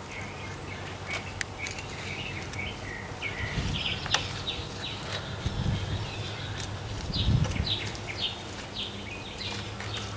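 Birds chirping in a run of short, falling chirps over a steady low hum, with a few soft low thumps and clicks.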